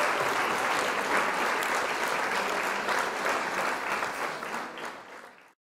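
Crowd applause, many hands clapping steadily, fading out near the end and then cutting off abruptly.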